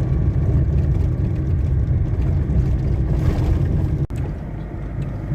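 Steady low engine and tyre rumble of a loaded truck driving along, heard from inside the cab. A brief swell of hiss comes about three seconds in, and the sound breaks off for an instant just after four seconds, then runs on a little quieter.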